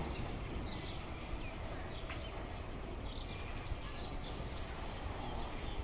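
Outdoor background: a steady low noise with small birds chirping briefly about once a second.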